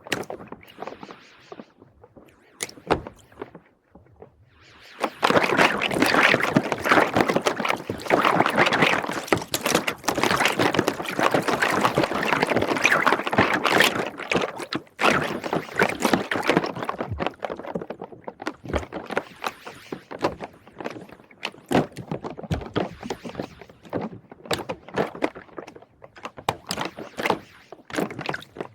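Plastic rings clicking and clattering against each other, wet with soapy water. The clatter is dense and crackling from about five seconds in to about fourteen, then thins to scattered knocks and clicks.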